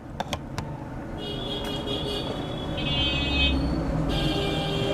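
A motor vehicle passing in the street, building up over the first second and holding steady, with a few sharp clicks at the start.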